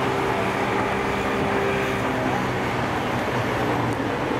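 Traffic on a flooded street: motorbike and scooter engines running with a steady hum as they ride through the water, over a steady hiss of water and rain.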